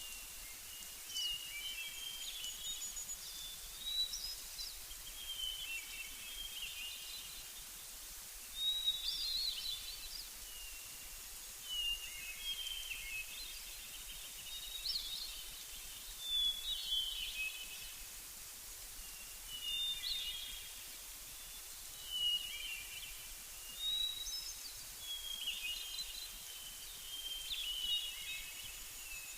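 Songbirds singing short chirping phrases, one every two to three seconds, over a steady faint hiss.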